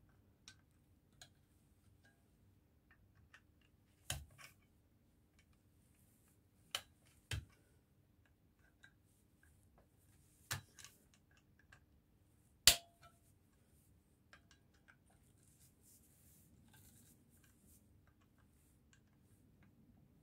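Sparse sharp metallic clicks and taps from a Triumph T140 clutch as its spring nuts are worked down on the pressure plate by hand and tool, a few louder clicks standing out, the loudest about twelve seconds in.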